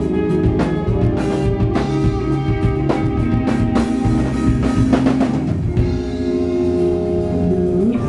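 A live rock band playing: electric guitar chords over a drum kit. A little past halfway the drumming stops and the guitar chords ring on alone.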